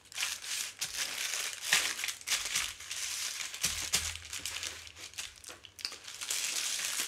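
Grey plastic postal satchel crinkling and rustling with irregular crackles as it is handled.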